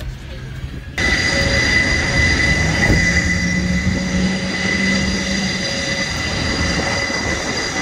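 Jet aircraft turbine whine on the apron: a steady high whistle over a rush of air, cutting in suddenly about a second in, with a lower hum joining for a few seconds in the middle.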